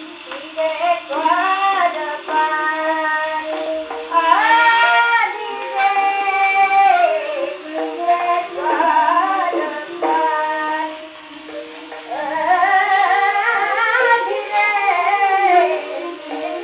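A woman singing a song in raga Khamaj, played from an old 78 rpm disc record on a horn gramophone, over steady held instrumental notes. The sound is thin and narrow, with no bass and little treble.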